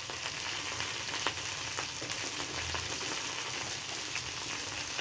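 Chicken pieces frying in oil and butter in a pan, a steady sizzle with scattered crackles as the pieces crisp.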